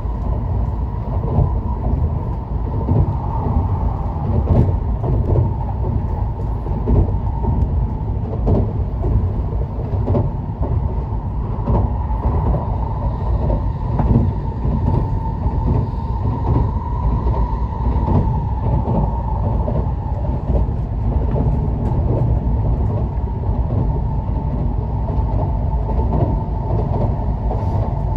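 Tokaido Shinkansen train running at speed, heard from inside a passenger car: a steady low rumble with a constant whine over it and scattered light clicks from the track.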